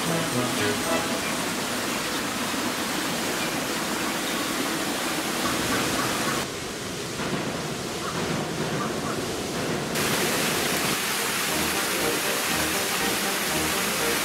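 Steady rushing noise throughout, changing character at two cuts. From about ten seconds in it is the splashing rush of a small rock waterfall. Background music plays underneath.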